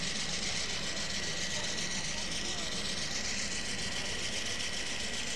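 A steady engine-like running drone with a constant high whine, over a murmur of voices.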